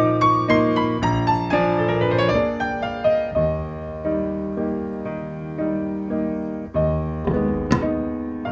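Background piano music, a gentle melody of struck notes over sustained lower notes.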